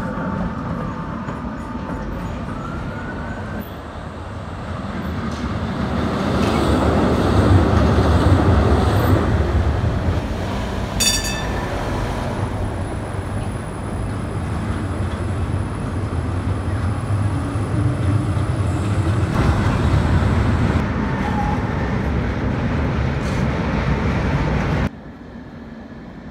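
Trams running on street rails in city traffic: a steady low rumble that swells over a few seconds and stays loud, with a short sharp click about eleven seconds in. The sound drops off suddenly near the end.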